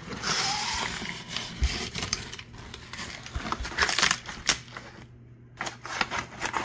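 Crinkling and rustling of crumpled kraft packing paper and a foil bubble-insulated liner being handled inside a cardboard box, with cardboard flaps scraping and many small crackles. The rustling pauses briefly about five seconds in, then starts again.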